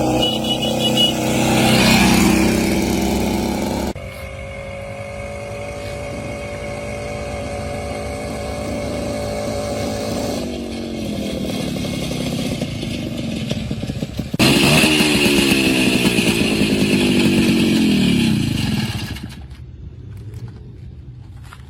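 Minsk 125's single-cylinder two-stroke engine running and revving, in several abruptly joined takes. Near the end the revs fall away and the engine sound fades.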